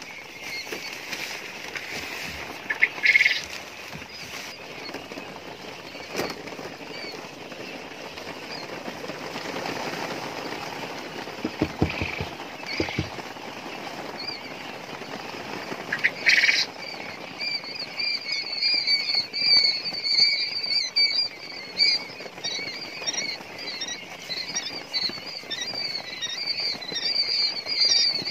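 A brood of newly hatched quail chicks peeping: many short, high chirps overlapping, growing busier and louder past the halfway point. Two short, loud bursts of noise cut in, a few seconds in and again about halfway.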